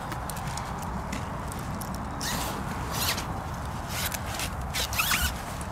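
Zip on a mesh carp weigh sling being pulled in several short rasps, with the sling's nylon fabric rustling as it is handled.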